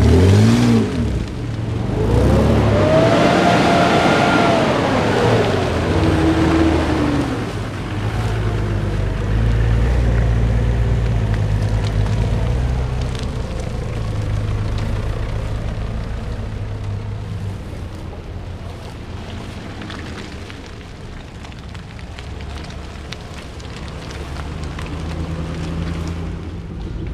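Engines of off-road 4x4 SUVs running as they drive past one after another on a muddy track. In the first few seconds one engine's pitch rises and falls again as it is revved and eased off, and the engine sound is louder in the first half, easing off later.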